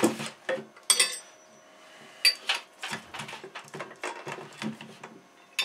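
Metal parts of a Granberg Alaskan small log mill clinking and knocking together as its bracket is fitted onto a chainsaw bar: a string of irregular clinks, one about a second in ringing briefly.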